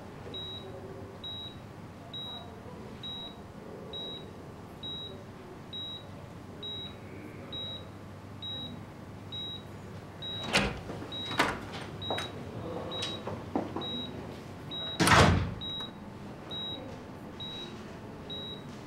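Hospital patient monitor beeping steadily, one short high beep about every second. A few knocks and thuds come in the middle, the loudest about fifteen seconds in.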